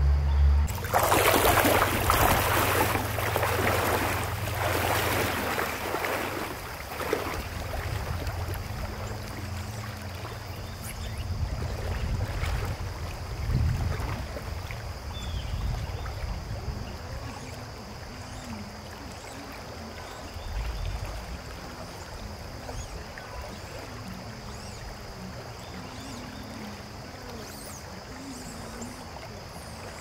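Shallow river flowing over a stony riffle: a steady rush of water, louder and fuller for the first several seconds, then settling to an even, softer rush.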